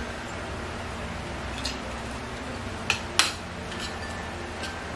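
Forks and spoons clinking and scraping on plates while eating: a handful of sharp clinks, the loudest about three seconds in, over a steady low hum.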